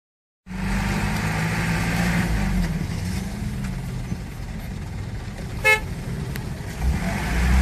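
Jammed road traffic: car engines running, with car horns sounding and one short, sharp horn toot a little before the end.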